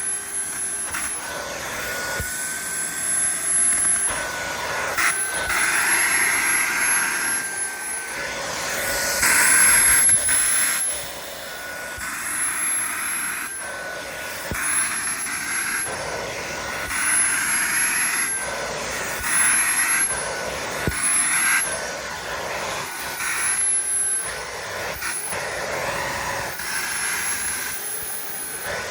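Dreo cordless stick vacuum running with a steady high motor whine while its multi-purpose brush is worked over sofa upholstery. The whine drops out briefly every few seconds and comes back, with uneven surges of rushing air between.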